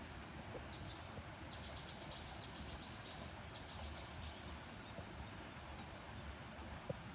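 A bird giving a quick series of high-pitched chirps through the first half, over steady outdoor background noise, with a single short tap near the end.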